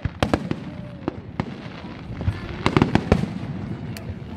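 Aerial firework shells bursting: a scattered run of sharp bangs, with a quick cluster of them about three seconds in.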